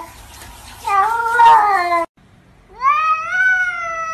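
Domestic cats meowing: two long, drawn-out meows, one about a second in and another starting in the second half with a sharp upward swoop. Each is shaped like a short spoken phrase.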